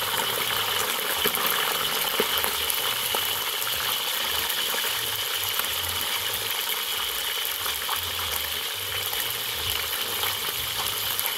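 Small whole fish deep-frying in hot coconut oil in a large wok: a dense, steady sizzle with fine crackling.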